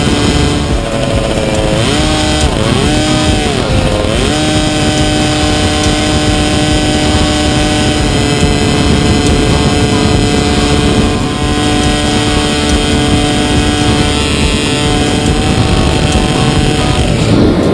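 Vintage McCulloch 100cc two-stroke kart engine running hard at high revs, heard from on board. Its pitch dips briefly and climbs back three times about two to four seconds in, then holds steady, with one more short dip near the end.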